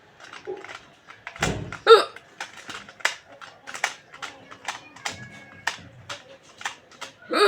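A woman hiccuping: two sharp, short hiccups, one about two seconds in and another near the end, with faint clicks in between.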